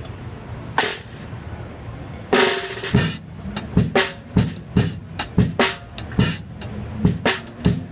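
Drum kit played with sticks: one hit about a second in, then from about two and a half seconds a steady run of snare and drum strokes, roughly three a second, some with a short ringing tone.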